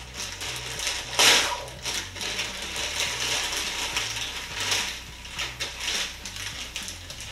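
Plastic packaging crinkling and rustling as a garment is handled and unwrapped from its clear plastic bag, with a louder crackle about a second in.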